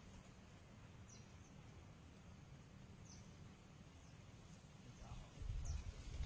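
Quiet outdoor ambience at a swamp: a low wind-like rumble with three faint, short, high chirps of a bird spread through it. About five seconds in, a louder low rumble sets in.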